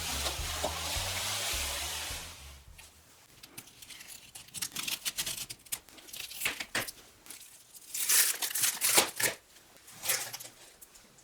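Packaging being torn open and crinkled in short, irregular rips. Background music fades out in the first few seconds.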